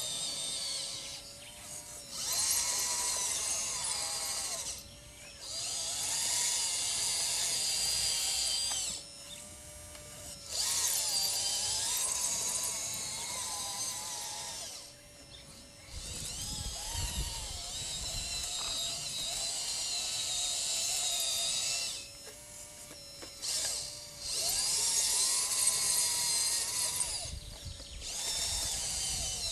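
Radio-controlled scale model Liebherr LR632 crawler loader's electric drive and hydraulic pump motors whining in bursts of a few seconds with short pauses between, the pitch rising and falling as the loader drives and works its bucket.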